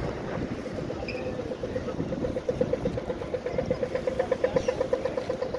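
Pedestrian crossing signal beeping rapidly, a quick run of short pips at one pitch, about ten a second, starting about two seconds in and loudest near the end. Street traffic and wind on the microphone run underneath.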